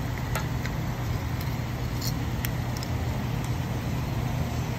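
Steady low hum with a few light clicks and taps as the opened antenna's metal base and circuit board are handled.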